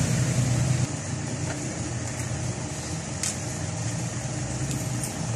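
A motor vehicle engine idling steadily in the background, with a few light clicks.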